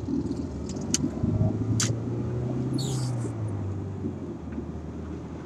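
Car engine and road noise heard from inside the cabin while driving: a steady low hum whose engine note drops a little about three and a half seconds in, with two sharp clicks about one and two seconds in.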